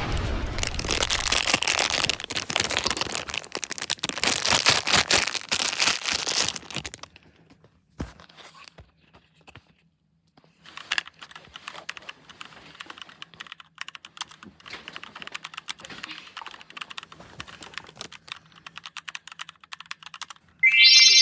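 Box and packaging being opened by hand: a dense run of crinkling, tearing and clicking, then quieter scattered clicks and rustles after a short pause. Music starts near the end.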